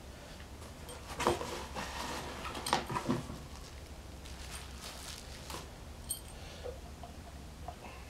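Scattered clinks and knocks of hand tools and metal parts while the bolts of a pulley bushing are worked, busiest in the first three seconds, with a small metallic ting about six seconds in.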